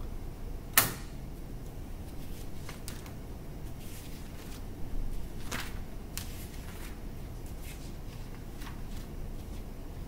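Scattered clicks and knocks over a steady low hum, the loudest a single sharp click about a second in, with a small cluster of knocks around the middle.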